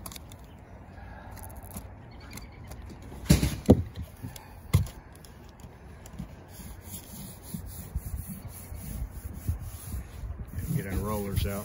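Hands rubbing and pressing black seam tape down onto a rubber roof membrane, a steady scuffing. Three sharp knocks come between about three and five seconds in, and a short voice sound near the end.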